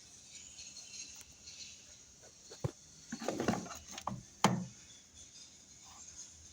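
Handling noises: a few sharp clicks and a short clatter of knocks in the middle, the loudest click about four and a half seconds in, over a faint hiss.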